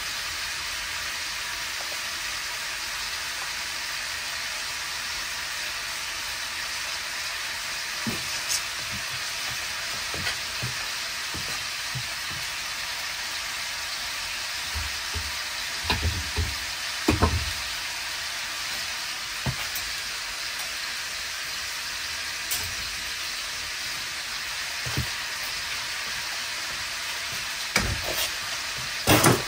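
Bacon and mini sausages frying in a pan: a steady sizzle with scattered small pops, and a few louder knocks around the middle and near the end.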